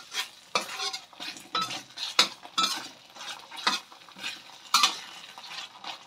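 Metal spoon stirring and scraping against a stainless steel wok, with a sharp scrape or clink every half second to a second. Underneath, rendang spice paste with galangal and lemongrass sizzles in hot oil as it is sautéed until fragrant.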